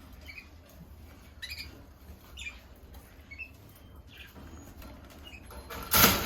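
Canaries giving short chirp call notes about once a second, with a loud brief rustle near the end.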